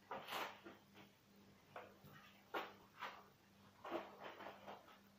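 Faint short knocks and scrapes of a kitchen knife and a disposable plastic plate being handled and set down, with a quick cluster of small taps about four seconds in.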